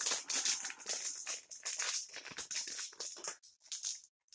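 Thin plastic bag crinkling as it is opened and handled, with the clicks and rattle of a handful of 16 mm board-game dice tipped out into a palm. It stops about three and a half seconds in.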